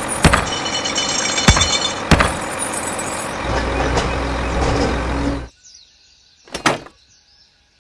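Truck engine running with several sharp knocks, cutting off suddenly about five and a half seconds in; a single short burst of noise follows about a second later.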